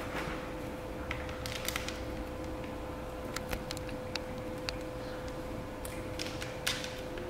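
Plastic window-tint film handled and pressed onto a wet car door window, giving scattered small crackles and clicks with a couple of brief swishes.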